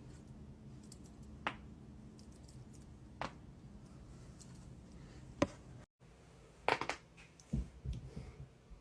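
Neck joints cracking during a chiropractic adjustment: three sharp single pops about two seconds apart, the third the loudest, then a quick burst of crackling pops followed by a couple of dull thumps.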